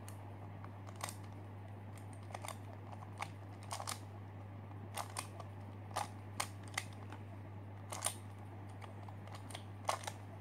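ShengShou spring-tensioned skewb puzzle being turned by hand: its plastic pieces make irregular sharp clicks, about a dozen of them, as the corner layers snap round.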